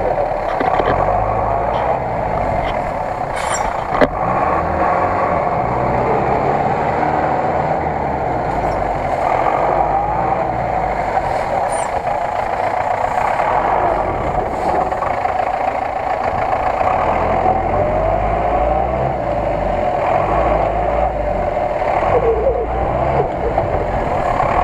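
GAZ-66 truck engine running under load as the truck churns through deep mud, its revs wavering up and down. A single sharp click comes about four seconds in.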